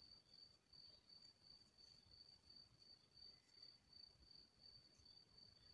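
Near silence: faint room tone with a steady, high-pitched pulsing whine, a few pulses a second.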